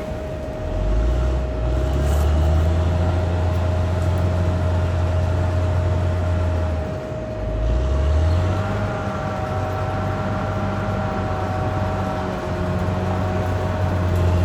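Caterpillar D6R XL bulldozer's diesel engine running with a steady low drone and a constant whine over it. The drone dips briefly about seven seconds in, then picks back up, as the load changes.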